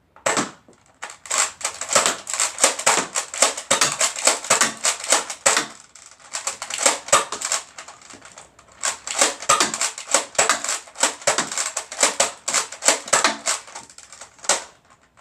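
Nerf N-Strike Elite Surge Fire pump-action dart blaster being fired rapidly: a fast run of plastic clacks from the pump working and darts launching, several a second, pausing about halfway and then starting again, with one last shot near the end.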